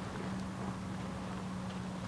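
Faint footsteps on a sandy dirt trail, over a steady low hum.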